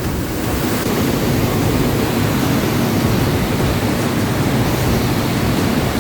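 Underground waterfall in a cave, a powerful mountain torrent falling about 18 metres, heard up close as a steady, loud rush of falling water, so noisy that one has to shout to be heard over it.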